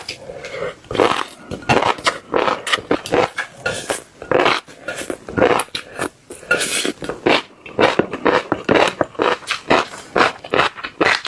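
Crunchy chewing of fish roe: a quick, irregular run of sharp crackles and pops as the eggs burst between the teeth.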